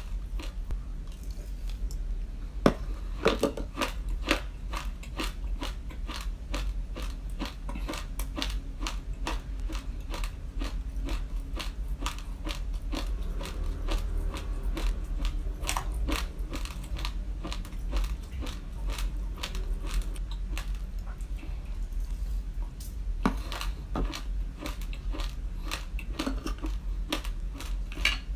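Raw glutinous rice being chewed, a dense, continuous crunching of hard grains cracking between the teeth, with a few louder cracks along the way.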